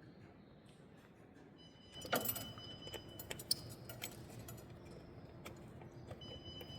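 Light metallic clinks and knocks of hand tools and wheel parts being handled, starting about two seconds in, with scattered single clicks after.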